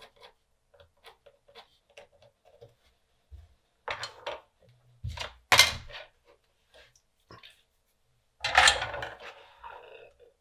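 Hand tools being handled on a workbench: a run of faint clicks and taps, then three louder short clatters about four, five and a half and eight and a half seconds in as tools are set down and picked up.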